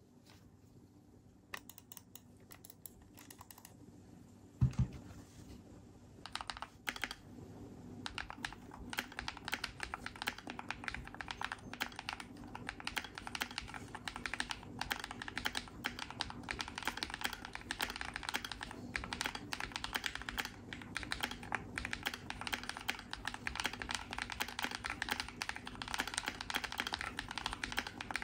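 Typing on a modded Keychron Q2 Pro mechanical keyboard with hand-lubed Vintage White switches and foam-damped case. It starts with a few scattered keystrokes and a single thump about five seconds in, then settles into steady, fast typing from about eight seconds in.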